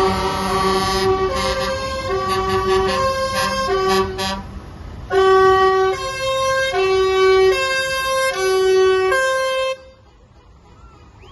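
Truck musical air horns playing a tune of held notes, pausing briefly about four and a half seconds in, then starting up again louder, over the low running of truck engines. The horns cut off abruptly near the end.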